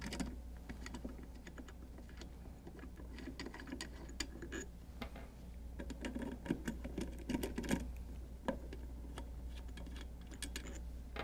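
A small screwdriver backing out the screws of the plastic injector cap on a Fleck 5800 water-softener control valve: faint, irregular clicks and ticks of the driver tip and screws against the plastic body, with light handling of the parts.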